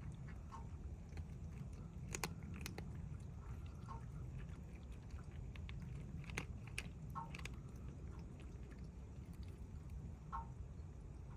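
Cats chewing and crunching their food, with a few sharp crunches now and then over a steady low rumble.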